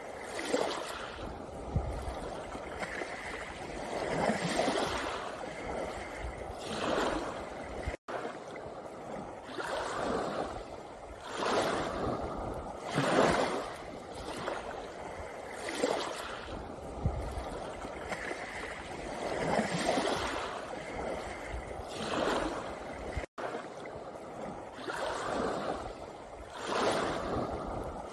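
Small sea waves breaking and washing up a pebbly shore, one surge of wash every two to three seconds. The sound cuts out for an instant twice.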